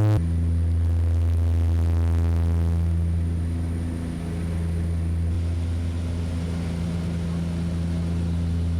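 Small propeller airplane's engine drone, loud, low and steady, easing slightly about four seconds in.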